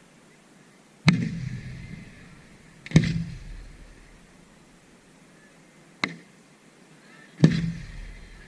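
Display fireworks going off: four sharp bangs with rumbling, echoing tails, spaced a second or two apart, the third one weaker and shorter.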